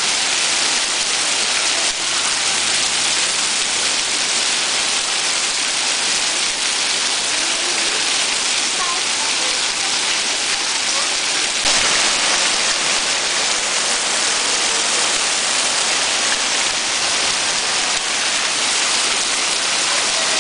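Heavy rain pouring down in a steady, dense hiss, with one brief click about halfway through.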